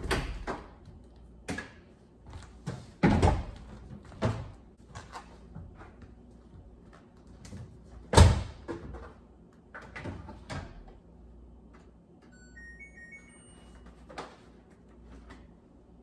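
Laundry closet doors opened by their handles, then knocks and thumps from handling things at a front-loading washing machine, the loudest a single thump about eight seconds in. About twelve seconds in, the washer's control panel plays a short run of stepped electronic beeps as it is switched on.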